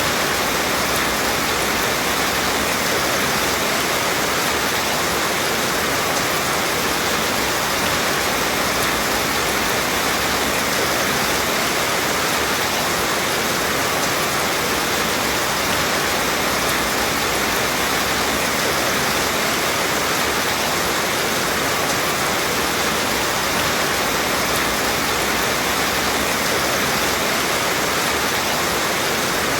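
Rain falling steadily: an even, unbroken hiss that does not change.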